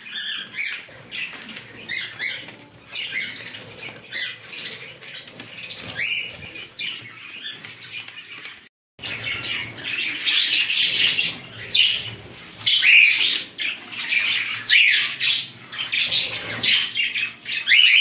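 A flock of budgerigars chattering and chirping in a dense, continuous warble of short calls. The sound cuts out for a moment about halfway through and comes back louder and busier.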